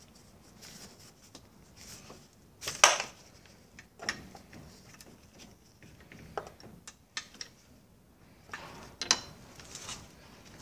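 Hand wrench clinking and knocking against a nut and metal fittings on an outboard motor's powerhead. The clicks come irregularly, and the sharpest knock is about three seconds in.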